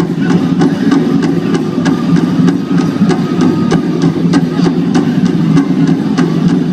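Powwow drum group singing a Chicken Dance song, the big drum struck in a steady beat of about three strokes a second under the singers' voices.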